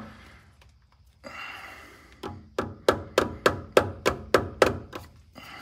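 Rubber mallet tapping a pilot bearing into the rear of the crankshaft to seat it flush. After a short rustle, about ten quick blows at roughly three a second begin about two seconds in.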